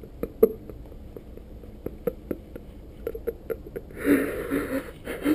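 Scattered small clicks and scuffs from a crouching person shifting on ash and rubble, then a louder, noisy rustle about four seconds in that lasts about a second.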